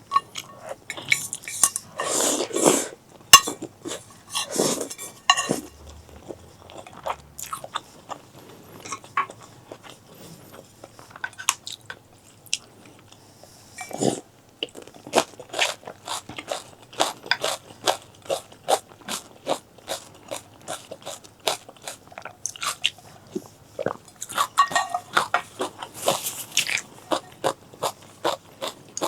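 Close-miked eating sounds: biting and chewing, with long runs of short, sharp crunching clicks and a few longer, noisier bites near the start and near the end.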